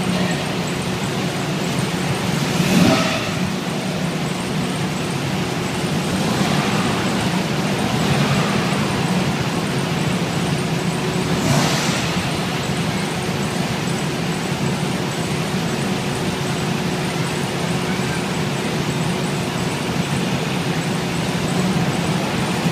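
Engines of a queue of classic Volkswagen buses idling and creeping forward, a steady low hum, with a few brief louder surges at about three, six and twelve seconds in.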